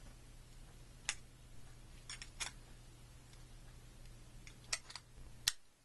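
About half a dozen sharp metallic clicks and taps from a SharkBite disconnect tong clip being set and shifted on a brass push-fit coupling. The last click, near the end, is the loudest.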